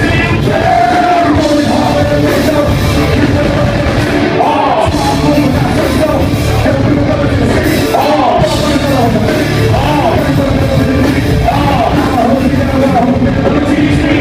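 Loud live concert music with a singing voice over a heavy bass.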